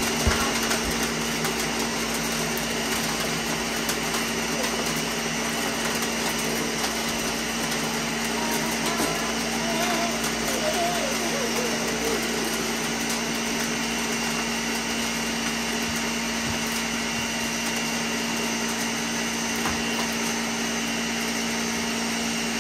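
Countertop blender running steadily, blending a frozen-fruit smoothie: a constant motor hum with an even whir that does not change pitch.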